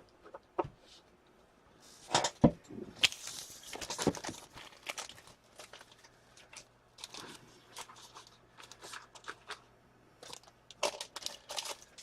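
Hockey card packaging being torn open and handled: wrappers crinkling and tearing, with sharp taps and clicks in uneven bursts, busiest about two to five seconds in and again near the end.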